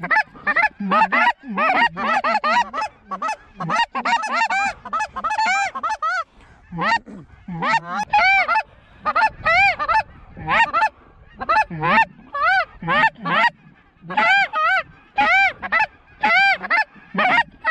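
Goose honking: a dense run of short honks and clucks, several a second, each breaking from a low note up to a high one, easing off briefly midway.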